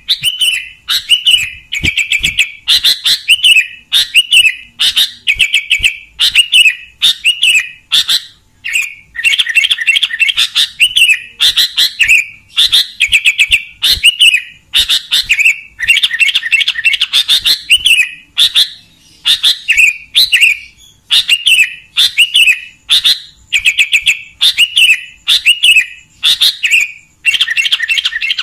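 Sooty-headed bulbul (kutilang) singing vigorously with a clear voice: short, bright phrases repeated about once or twice a second with hardly a pause.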